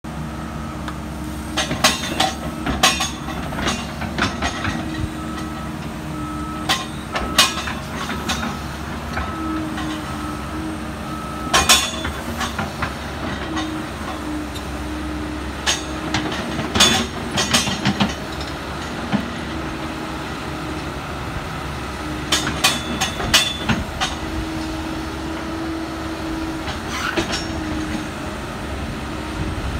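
Kobelco SK170LC-10 excavator's diesel engine and hydraulics running steadily under load as it digs, with a whine that shifts in pitch now and then. Sharp clanks and knocks come in clusters every few seconds as the bucket and linkage work the soil.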